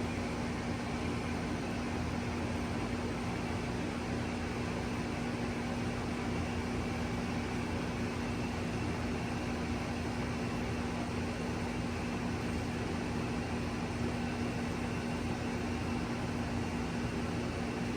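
1999 Trane XE1000 heat pump running steadily in cooling mode: an even whoosh of machine and fan noise over a constant low hum that does not change.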